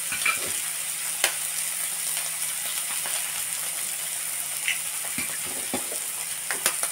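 Eggs and chicken pieces sizzling steadily in a hot four-cup nonstick egg pan, with a few sharp clicks, the loudest about a second in and two close together near the end.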